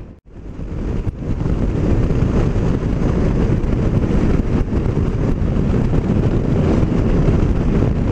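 Wind rushing and buffeting over the microphone of a moving scooter, mixed with engine and road noise, steady throughout after a brief drop in the sound right at the start.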